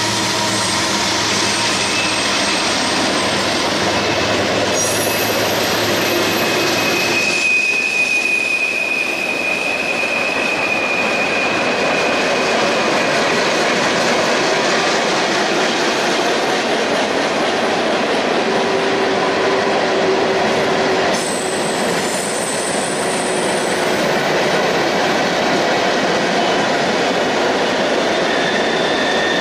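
Freight train's cars rolling over a stone arch viaduct: steady loud rumble of wheels on rail with wheel squeal, a high held squeal from about six to twelve seconds in and other squeals at different pitches later. A low diesel engine hum from the departing locomotives dies away in the first several seconds.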